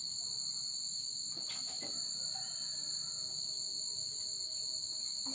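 A steady, high-pitched insect chorus, such as crickets, trilling without a break at two pitches, with a faint click about one and a half seconds in.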